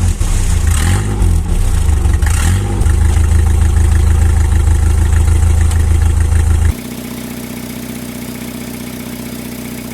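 Car engine running with a broken exhaust pipe, so the exhaust escapes before reaching the muffler and the engine sounds loud. The revs rise and fall in the first few seconds. About seven seconds in it cuts abruptly to a quieter, steady run of the engine.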